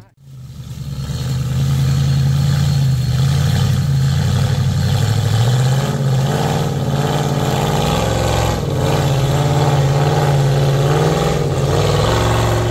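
Off-road 4x4's engine running steadily, with the revs rising and falling from about six seconds in as it works over the terrain.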